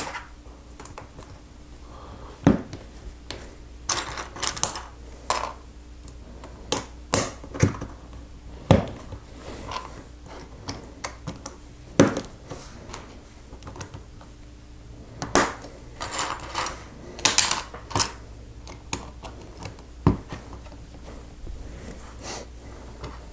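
Plastic LEGO bricks clicking and clattering as they are handled and pressed onto a plate: irregular sharp clicks, some in quick clusters of several.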